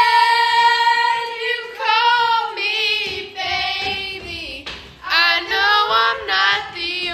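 Girls' voices singing in a playful, sing-song way: one long held note over the first second and a half, then a string of short sung phrases.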